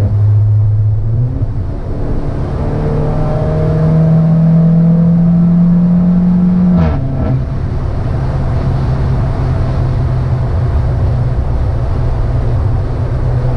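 Peugeot 308 THP's turbocharged 1.6-litre four-cylinder with a modified exhaust, heard from inside the cabin: the engine note climbs slowly under acceleration, then drops sharply about seven seconds in with a brief sharp burst, and runs steady at a lower pitch after that.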